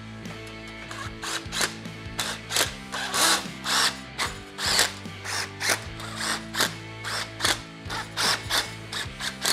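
Socket on a Bear Hold fence stretcher's bolt, tightening it to draw chain link fabric taut on the gate frame. It sounds as short rattling bursts, two or three a second, that keep repeating.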